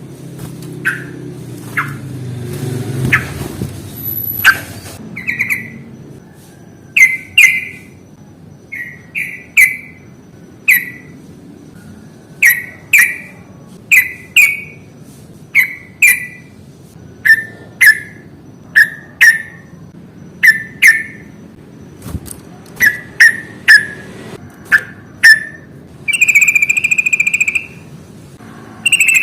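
Yellow-vented bulbul (trucukan) calling in a wild-type fighting style: short, sharp chirps, often in quick pairs, repeated about once a second, with one longer held whistled note near the end.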